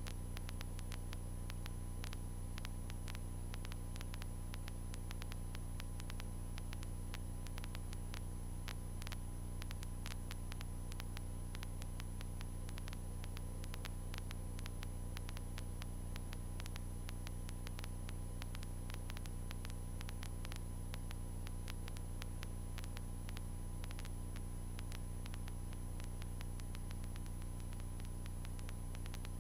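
Cessna 152's four-cylinder Lycoming engine and propeller giving a steady low drone in flight, with a faint crackle of static clicks over it.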